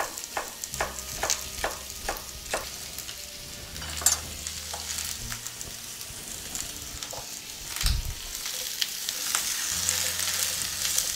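Chef's knife chopping celery on a wooden cutting board, a quick run of about three chops a second that stops after two or three seconds, over vegetables sizzling in an oiled skillet. Near the end a spatula stirs the pan and the sizzle grows louder.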